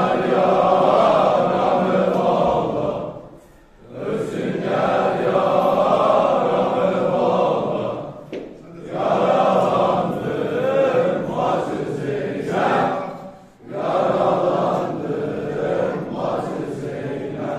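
A large group of men chanting together, a Shia mourning chant for Imam Hussein, in four long phrases broken by short pauses.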